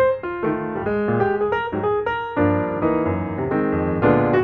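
Piano music: a melody of single notes played over chords.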